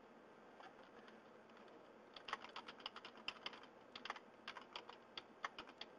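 Faint typing on a computer keyboard: a quick, uneven run of key clicks that starts about two seconds in.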